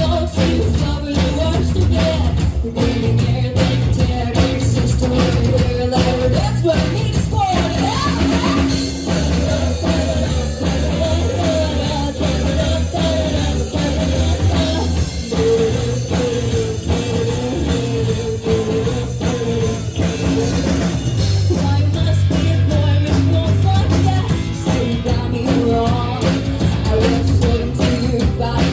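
Rock band playing live with a singer over a drum kit, bass and guitar, running steadily without a break.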